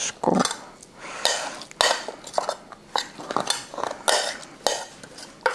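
A utensil scraping and knocking against a dish as cooked buckwheat porridge is scooped out, in a string of uneven knocks and scrapes.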